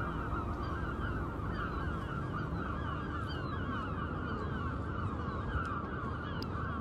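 A flock of gulls calling continuously, many short falling calls overlapping one another, over a low rumble.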